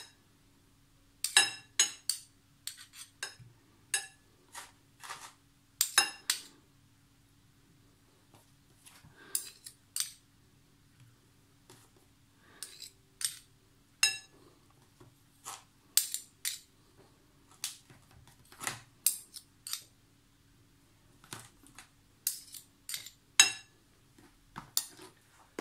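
Metal spoon clinking and scraping against a glass bowl and a spread tub as dabs of butter or margarine are put onto apple quarters. The clinks are short and irregular, a few of them ringing briefly.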